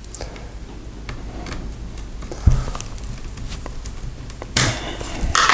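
Handling noise from working on an opened laptop: scattered small clicks, a soft knock about two and a half seconds in, and brief rustling near the end.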